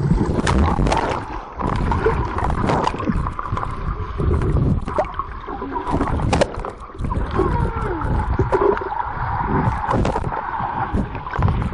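Muffled underwater churning and bubbling with irregular thumps and surges, as a swimmer kicks close to a waterproof compact camera held below the pool surface. A faint steady whine runs underneath.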